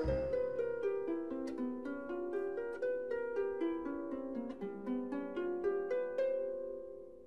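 Background music: a quick melody of short plucked notes that fades out near the end.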